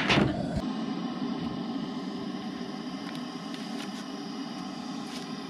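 A knock at the start, then the steady hiss and hum of a propane camp stove burner running under a camp oven as it preheats, slowly getting a little quieter.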